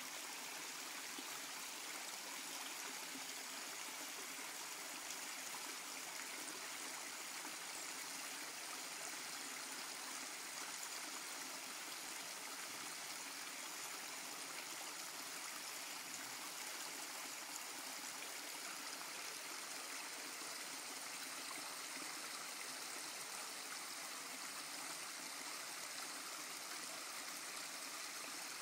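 Shallow rocky woodland stream running over stones and small drops, a steady, even babble of water.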